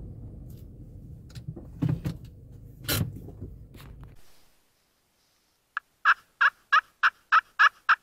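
Wind rumble on the microphone with a few knocks, cut off abruptly at about four and a half seconds. After a second of silence, a turkey yelps in an evenly spaced series of about eight short, clear notes, roughly three a second.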